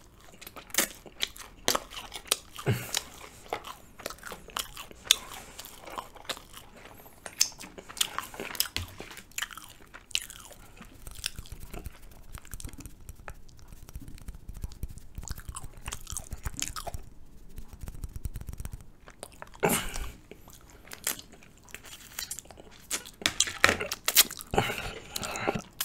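Close-miked mouth sounds of a person chewing Turkish flatbread with ajvar: many short, irregular wet clicks and crackles.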